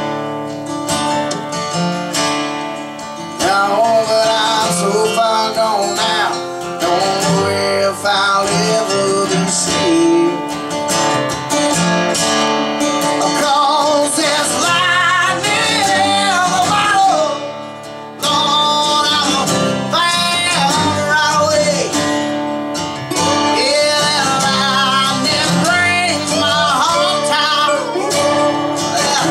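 Two acoustic guitars and a resonator guitar playing together: steady strumming with a lead line of bending, sliding notes above it. There is a brief drop in level about two-thirds of the way through.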